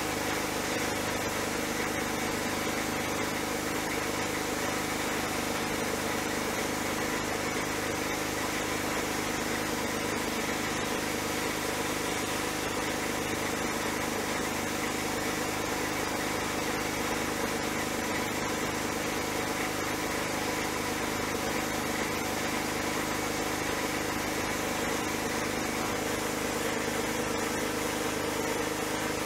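Abrasive blasting in a sandblast cabinet: a steady hiss of air and grit from a ceramic nozzle striking the sheet-steel parts of a Dietz kerosene lantern, over a steady machine hum.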